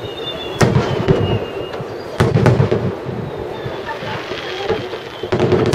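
Aerial firework shells bursting: several sharp reports, the loudest about half a second and two seconds in and a cluster near the end, each trailing off into a low rumble.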